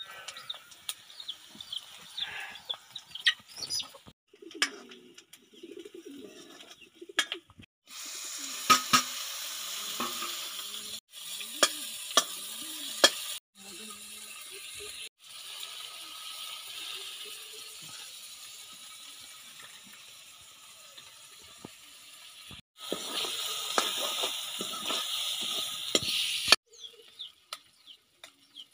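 Chopped onions and tomatoes sizzling in oil in a steel kadai, with a ladle scraping and clinking against the pan. The sizzle comes in several stretches that start and stop abruptly and is loudest near the end. Birds chirp in the first few seconds.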